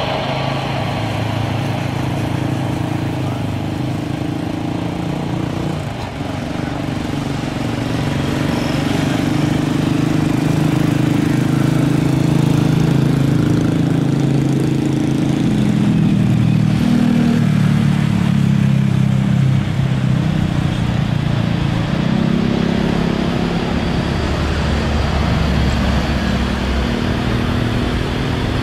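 Turbofan engines of an Airbus A330 airliner giving a steady low rumble as it rolls along the runway, growing louder about eight seconds in, with low engine tones shifting in pitch.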